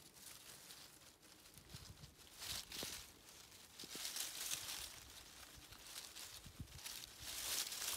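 Dry fallen leaves rustling and crackling as a fox cub roots and burrows through the leaf litter, in uneven bursts.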